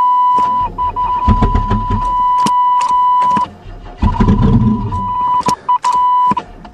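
Chevrolet Celebrity's starter cranking the cold engine in two sluggish attempts, with clicking, on a battery that has gone flat from sitting too long; the engine does not catch. A steady, high-pitched dashboard warning buzzer sounds throughout and falters when the starter draws current.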